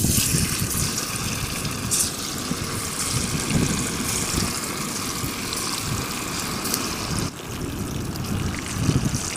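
Masala-battered fish pieces deep-frying in hot oil in an aluminium pan, a steady crackling sizzle that starts suddenly as the first piece goes in, with more pieces added by hand.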